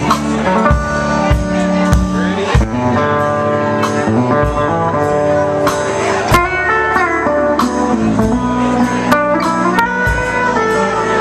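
Live country band playing an instrumental break without vocals: electric guitar and pedal steel guitar over walking upright bass, with sliding notes about six seconds in.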